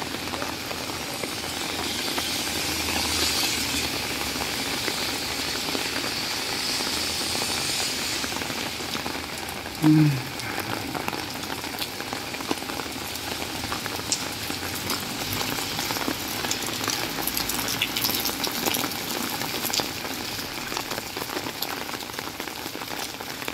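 Steady hiss of heavy rain falling on a wet street and on an open umbrella overhead, with sharper ticks of drops in the second half. About ten seconds in comes a brief, loud, low sound.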